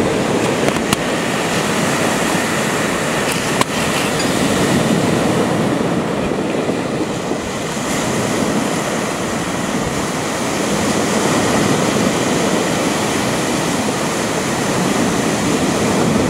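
Small waves breaking and washing over a pebble beach, a steady rushing wash with wind buffeting the microphone.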